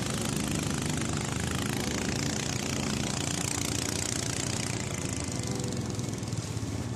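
Boat engine of a motorized canoe running steadily while under way, with a constant rush of water and wind over it.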